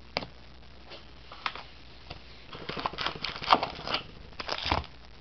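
Foil trading-card pack wrapper crinkling and rustling in a hand as a pack is taken from the box. There is a sharp click near the start and a few light taps, then a run of crackly rustling from about halfway through to near the end.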